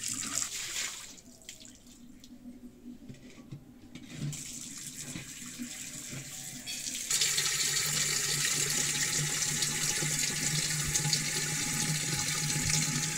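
Water from a wall tap running into a clay water pot (matka) as it is rinsed and filled. The splashing is softer for the first few seconds and grows louder from about seven seconds in.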